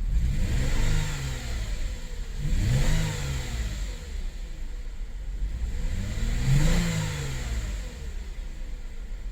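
Lexus IS V6 engine revved up and back down three times under the throttle while misfiring on one cylinder from a failed ignition coil, which the owner says makes it sputter and cut out.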